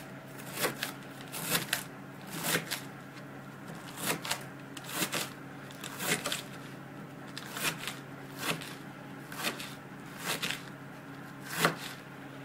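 Chef's knife slicing Napa cabbage on a wooden cutting board: crisp cuts ending in knocks on the board, often in quick pairs, about once a second, the loudest near the end. A steady low hum runs underneath.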